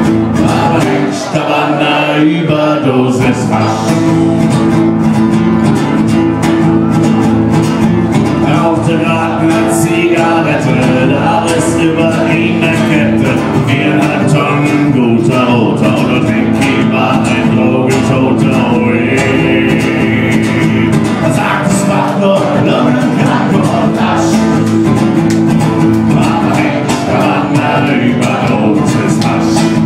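A man playing acoustic guitar and singing live on stage.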